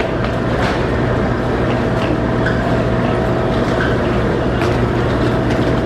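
Amtrak P42DC diesel locomotive idling with a steady, loud low hum, with a few light clicks over it.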